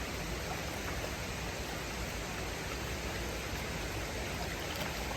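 Steady rushing of water from the Reedy River falls: an even, unbroken wash.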